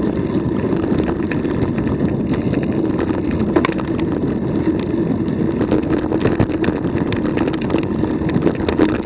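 Bicycle rolling fast over a dirt and leaf-covered trail: a steady rumble of tyre and wind noise, with many small rattles and clicks.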